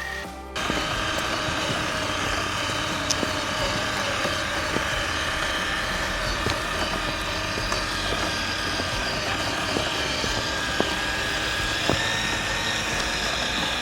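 Traxxas TRX-4 Defender RC crawler's electric motor and geared drivetrain running steadily with a faint whine, with a few scattered ticks.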